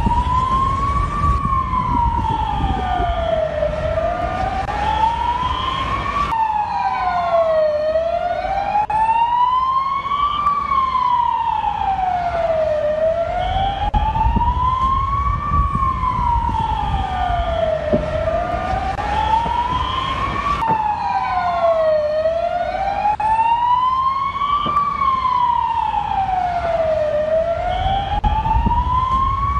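Emergency vehicle siren in a slow wail, its pitch rising and falling about every four and a half seconds. It breaks off and restarts abruptly twice, over a steady low rumble.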